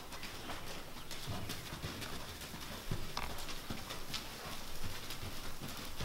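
Horse's hoofbeats on the sand footing of an indoor arena: soft, irregular thuds with occasional sharper clicks.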